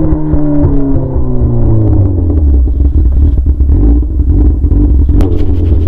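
Yamaha R6's inline-four engine running straight-piped, with no muffler: the revs fall away over the first two seconds and it settles into a loud, steady idle.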